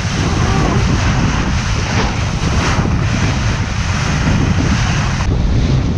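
Strong wind buffeting the microphone over water rushing along the hull of a Lightning sailboat sailing fast in heavy wind. The top of the hiss thins slightly about five seconds in.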